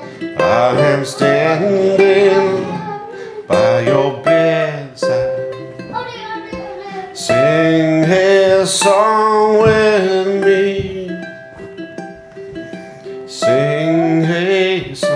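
A ukulele strummed and picked while a voice sings a slow song over it; the singing drops out for a couple of seconds past the middle, leaving the ukulele alone.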